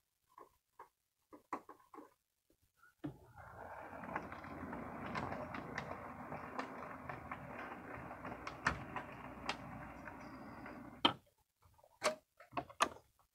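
HO scale model locomotive running along the track pulling two freight cars: a steady motor and wheel whir with quick clicks from rail joints and turnouts, beginning about three seconds in and stopping abruptly about eleven seconds in. A few sharp clicks follow near the end, with light ticks before the train starts.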